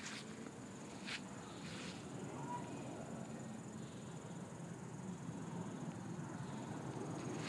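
Faint, steady high trilling of crickets or similar insects, with a few soft rustles in the first two seconds.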